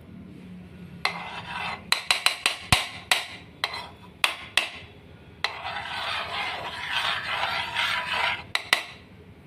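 Kitchen utensils knocking and scraping: a quick run of sharp clicks and taps, then a steady scraping for about three seconds, with two more clicks near the end.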